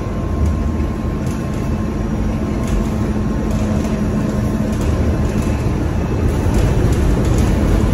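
Cabin noise inside a moving city bus: steady engine and road rumble, with a low hum that holds for a few seconds in the middle.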